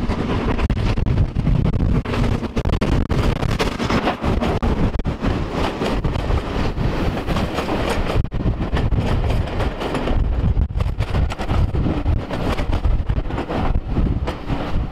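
BR Standard Class 9F 2-10-0 steam locomotive passing close by with a train of coaches, followed by the coaches rolling past with their wheels clattering over the rail joints.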